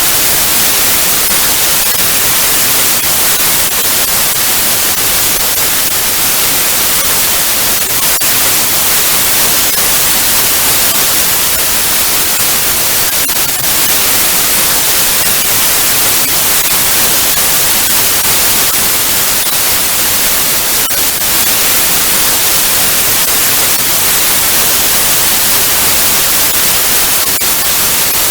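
TV static: a steady, loud hiss of white noise, strongest in the high frequencies, with faint crackles here and there.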